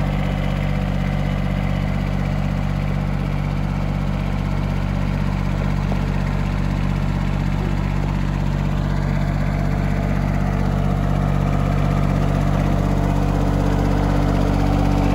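John Deere compact loader tractor's engine running steadily as the tractor drives along, getting a little louder near the end.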